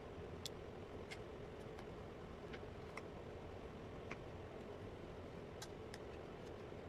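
Faint, scattered light clicks, about eight spread irregularly, over a steady low background hum.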